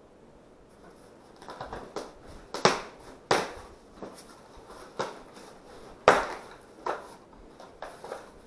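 Cardboard box flaps being pulled open and crumpled brown packing paper being handled, making a series of sharp crinkling rustles that start about a second and a half in, two of them much louder than the rest.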